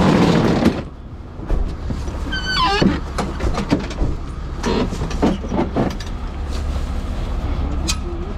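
A fire engine's equipment compartment being worked: a roller shutter rattling open at the start, then gear knocking and clattering as tools and extinguishers are handled. The truck's engine hums low underneath throughout.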